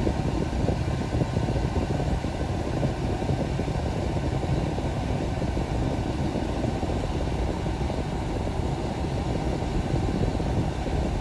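Steady road and tyre noise inside a moving car's cabin, with the air-conditioning fan blowing.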